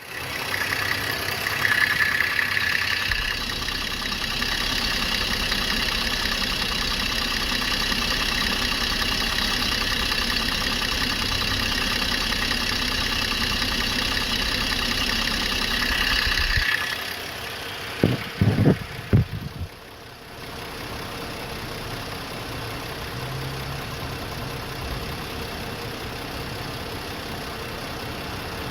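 Car engine idling with a fast, even ticking, which the owner suspects is lifter tick. About 17 seconds in the sound drops away, a few thumps follow, and the engine carries on more quietly.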